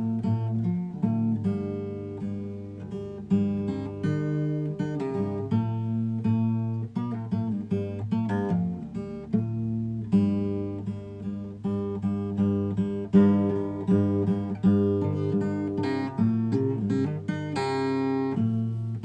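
Acoustic guitar music, strummed and picked chords.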